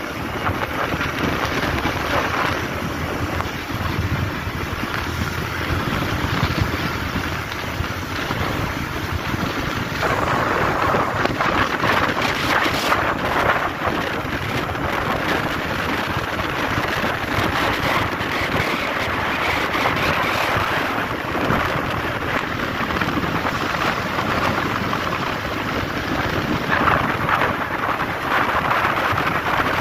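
Wind rushing over the microphone with road noise from a vehicle travelling at speed on the highway, a steady rumbling rush that grows a little brighter about a third of the way in.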